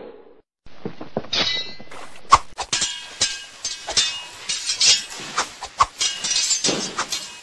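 A rapid, irregular string of sharp clinks and knocks mixed with short swishes, with a rising whoosh about a second and a half in.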